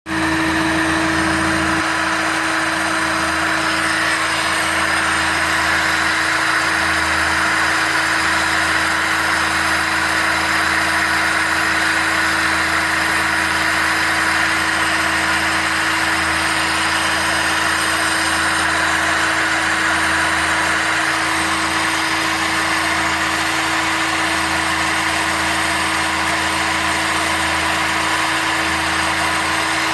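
A 1978 Volkswagen Passat's engine idling steadily with its air-conditioning compressor engaged and running. There is a constant hum with a steady tone over an even hiss.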